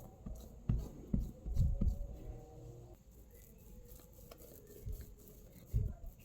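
Kitchen handling noises: a few soft, low thumps and light taps, with a faint steady hum that fades about halfway through.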